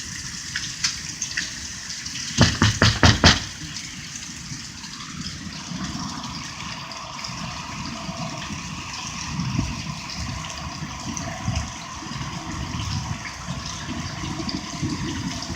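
Steady rain with small hail falling and water running. About two and a half seconds in, a quick run of five or six sharp knocks.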